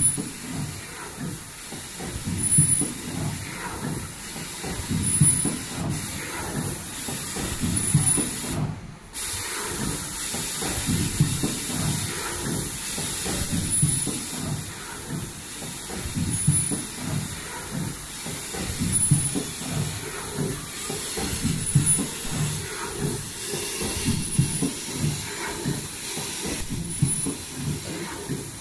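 Richpeace automatic KN95 mask production line running: a busy, continuous mechanical clatter of rapid strokes under a steady hiss, with short high-pitched tones recurring every second or two. The sound briefly drops away about nine seconds in.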